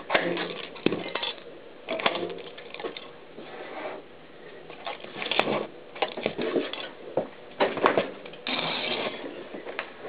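Mountain bike tyre rolling over smashed VHS and audio cassettes on a hard floor: plastic casings cracking under the wheel and shards clattering and scraping, in an irregular string of sharp cracks with a longer scraping rattle near the end.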